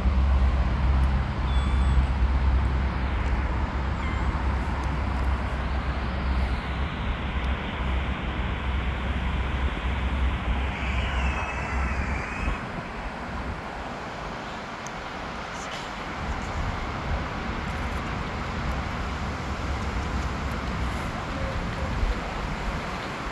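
Street ambience: steady traffic noise with a heavy low rumble through the first half that fades away about twelve seconds in. A short warbling high chirp comes about eleven seconds in.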